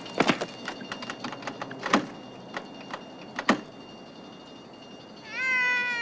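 Irregular sharp knocks and clicks over a steady high ringing tone, which stops about three and a half seconds in. Near the end, a long wavering cry with a slowly falling pitch begins.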